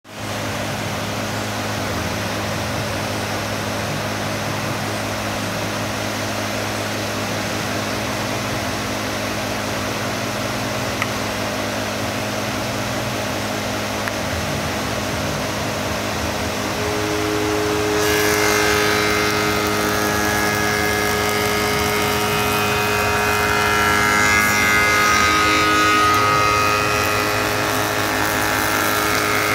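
Spindle moulder running with a steady hum. From about eighteen seconds in, its bearing-guided cutter is cutting into a wooden chair arm held in a template jig, adding a louder, higher cutting noise that shifts in pitch as the piece is fed around the cutter.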